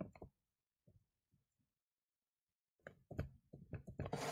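Faint taps and scratches of a stylus on a tablet screen as a word is handwritten: a few soft taps at the start, then a quick cluster of them about three seconds in. Otherwise the room is nearly silent.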